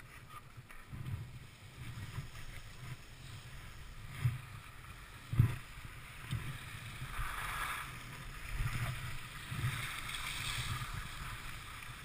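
Skis sliding over groomed snow: an uneven low rumble, with a scraping hiss from about seven to eleven seconds in. Two sharp knocks come about four and five and a half seconds in.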